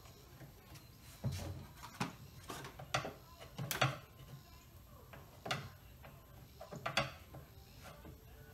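A string of about seven sharp clicks and knocks, spaced irregularly, from a hand tool working a small squeeze-type clamp on the BMW S85 V10's plastic intake plenum.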